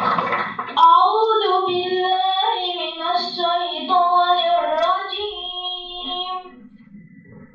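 Children's vocal group singing a slow melodic phrase in unison, entering about a second in after a short noisy rush and fading out near the end before the next phrase.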